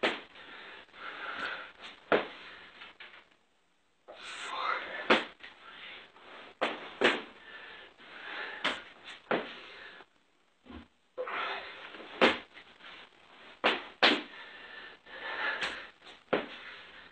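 A person doing burpee jacks: heavy, breathy panting broken by short pauses, with a sharp impact every second or two.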